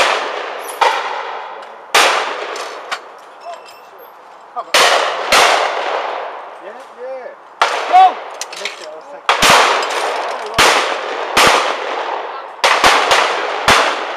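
Shotgun shots at a clay shoot: about a dozen sharp reports at irregular intervals, some louder than others, each trailing off in a long echo.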